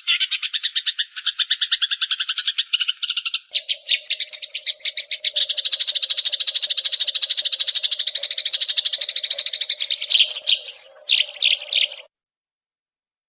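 Recorded songbird song: a fast, high, rapidly pulsed trill that changes pattern about three and a half seconds in. Near the end it breaks into a few short separate notes, then cuts off suddenly about twelve seconds in. A faint steady hum lies under it from about three and a half seconds on.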